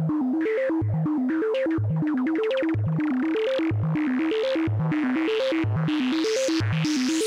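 Yamaha CS-30 analog synthesizer playing a quick, repeating stepped sequence of notes over a low note that comes about once a second. The filter sweeps so the tone brightens and darkens, and it is at its brightest near the end.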